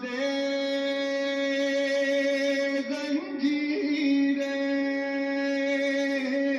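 Background music of long held notes, a chant-like sustained tone, with a slight waver in pitch a few seconds in.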